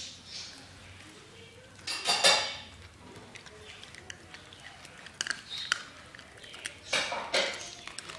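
Yorkshire terrier eating dry kibble from a bowl: clinks and clatter of kibble and bowl, loudest about two seconds in, with scattered smaller clicks and another clattery stretch about seven seconds in.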